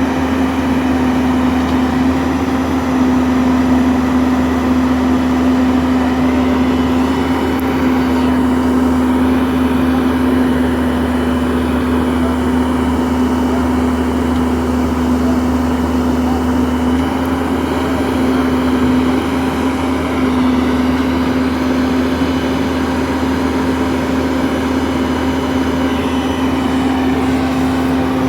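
JCB JS205 tracked excavator's diesel engine running steadily with a constant hum, no marked revving or pauses.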